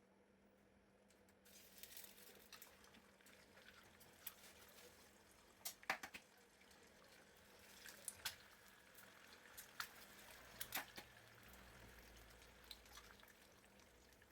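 Eggs frying in hot oil in a pan: a faint sizzle sets in about a second and a half in, with scattered sharp pops and crackles of spattering oil.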